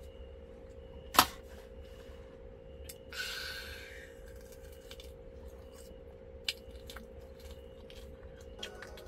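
Steady low hum of a small electric fan under quiet night ambience, broken by one sharp click about a second in and a brief soft hiss about three seconds in.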